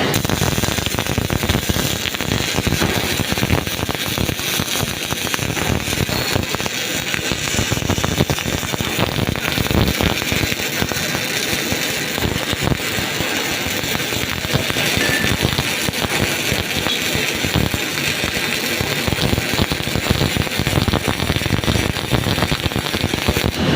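MIG welding arc crackling steadily through one continuous bead, a dense, even sputter that starts and stops with the weld.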